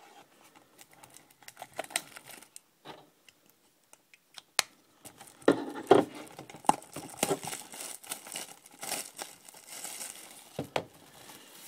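Plastic shrink wrap being torn and peeled off a sealed cardboard trading-card box, crinkling and crackling unevenly. It gets busier about halfway through, with a few sharper snaps.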